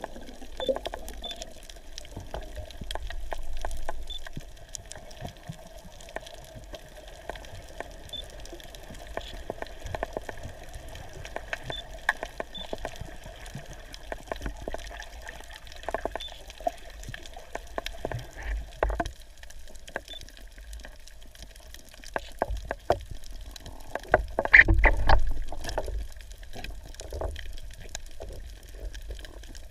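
Underwater sound picked up by a submerged camera: a steady watery hiss and hum, dotted with scattered crackling clicks, and a louder burst of noise about 25 seconds in.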